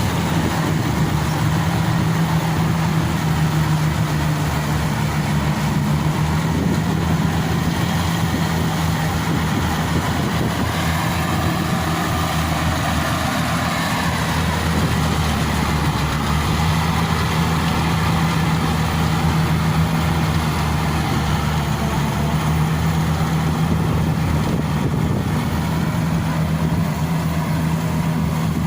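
Yanmar AW70V rice combine harvester running steadily, its diesel engine holding a constant low hum under the mechanical noise of the machine.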